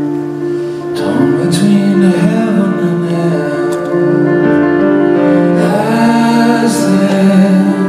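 Live ballad: sustained chords on a Nord stage keyboard, with a slow sung melody coming in about a second in.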